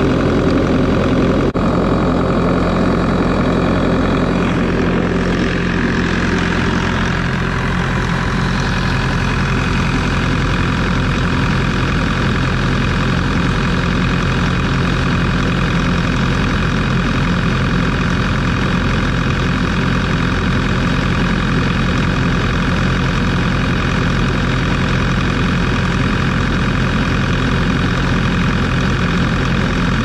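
Bobcat S570 skid steer's diesel engine idling steadily, heard up close from beside the engine bay, with a slight drop in level about seven seconds in. It is running so a freshly replaced O-ring on a leaking hydraulic fitting can be checked for leaks.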